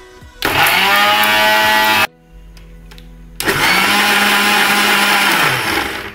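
Kitchen mixer grinder (mixie) running twice with cut guava pieces in the jar, grinding them to a paste. Each run lasts a second or two; the motor whines up to speed, and the second run winds down at the end.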